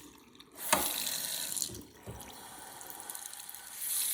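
Faucet water running into a sink from a freshly repaired valve. The flow is nearly stopped at first. A knock comes just under a second in, and the water runs again. It drops to a weaker stream about two seconds in, then runs stronger near the end.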